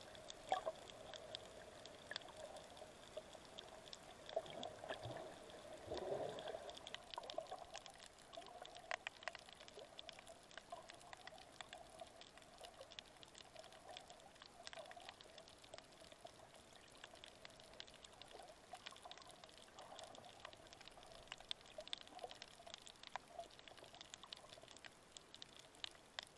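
Faint underwater sound picked up by a submerged camera over a coral reef: scattered crackling clicks over a steady low hum, with a brief watery swell about six seconds in.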